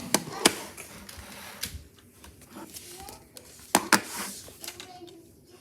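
A few sharp clacks of hard plastic, Lego pieces knocking: two near the start and two close together nearly four seconds in.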